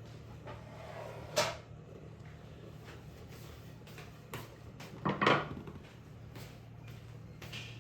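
Kitchen clatter: a sharp knock about a second in and a longer clattering cluster around five seconds, like dishes or a cupboard being handled, over a steady low hum.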